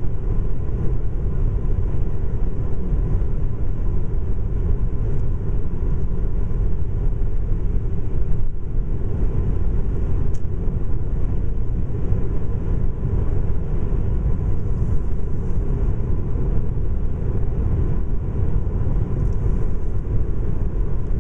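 Road noise of a car driving at highway speed, heard from inside the cabin: a steady low rumble of tyres and engine.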